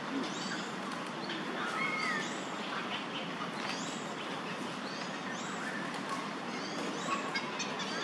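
Outdoor ambience of steady background noise with many short, high bird chirps scattered throughout and a brief gliding whistle about two seconds in.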